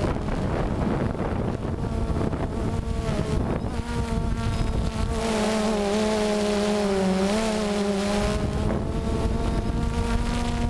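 DJI Phantom quadcopter's motors and propellers buzzing, heard from the camera on board, the pitch wavering as it manoeuvres. Wind noise on the microphone covers much of the buzz in the first half.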